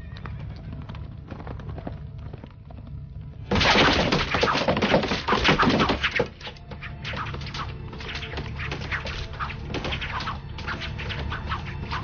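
Film soundtrack: a dense volley of arrows striking wooden boards over background music. The volley is loudest from about three and a half to six seconds in, then thins to scattered shorter hits.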